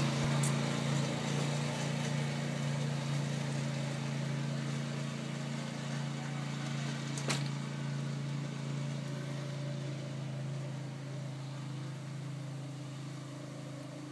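Four-wheeler (ATV) engine running steadily as it drives off, slowly growing fainter. A single sharp click about seven seconds in.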